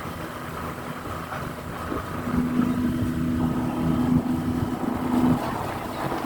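A vehicle engine running steadily. A low droning tone swells and grows louder for about three seconds in the middle, then drops back.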